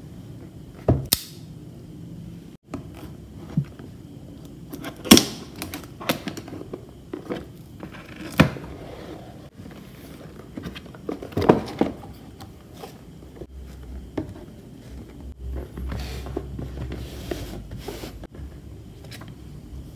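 Cardboard box being handled and opened by hand: scattered taps, knocks and scrapes as it is turned over and its lid lifted, with a few sharper knocks spread through.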